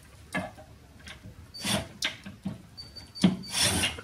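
Screwdriver working at a wooden kitchen-cabinet plinth board: a handful of irregular clicks and knocks with short scraping and rustling, the loudest scrape near the end.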